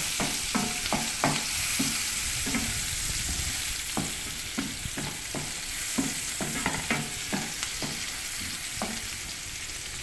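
Onions and garlic sizzling in oil in a non-stick frying pan, with a utensil scraping and knocking against the pan a few times a second as they are stirred. The steady hiss slowly gets quieter.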